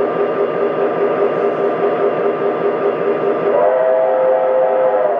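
Electronic sound effects of a Lionel O-gauge model steam locomotive: a steady steam rumble and hiss with a repeating pulsed tone. About three and a half seconds in, a multi-note steam whistle starts and holds.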